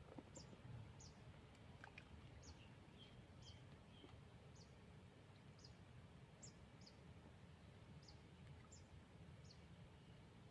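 Near silence of an outdoor canal bank, with a small bird giving faint, short, high chirps about once a second.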